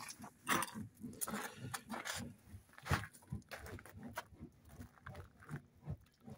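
Footsteps crunching on gravel, a short crunch about every half second.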